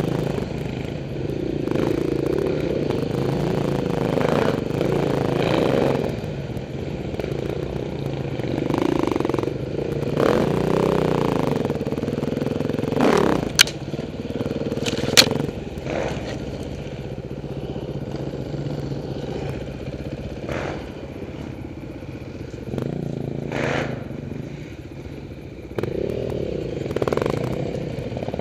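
Off-road dirt bike engine running on a rough trail, its pitch rising and falling with the throttle. Two sharp knocks a second and a half apart come about halfway through.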